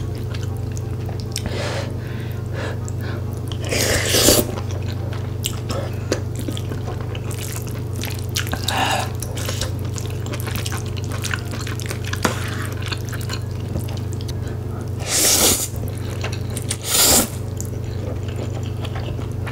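Close-miked eating: wet chewing and loud slurps of sauce-coated glass noodles, about four slurps spread through, over a steady low hum.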